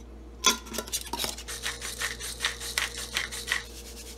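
A metal spoon against a glass jar of granulated sugar: a sharp clink about half a second in, then a run of quick scraping strokes, about five a second, that stops shortly before the end.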